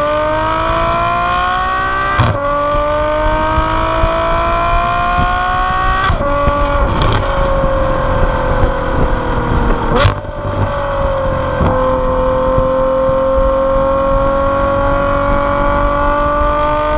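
Ferrari F12's naturally aspirated 6.3-litre V12 through an IPE Innotech exhaust, heard at the tailpipes while driving: it rises in pitch and upshifts about two and six seconds in, then eases off. A sharp crack comes about ten seconds in, another gear change follows shortly after, and the note then climbs slowly and steadily.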